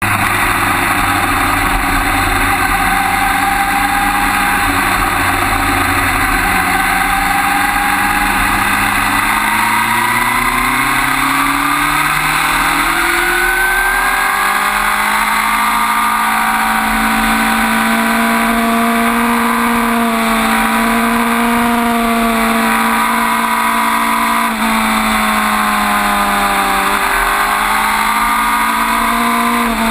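Suzuki GSX-R1000 K5 sport bike's inline-four engine pulling hard at speed, its revs climbing steadily for several seconds about a third of the way in, then holding high, with a brief dip and rise again near the end. A constant rush of wind runs under it.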